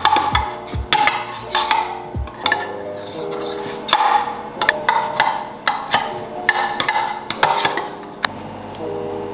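Metal spoon scraping and tapping inside a metal loaf tin while spreading butter to grease it: an irregular run of sharp scrapes and clicks. Background music plays under it.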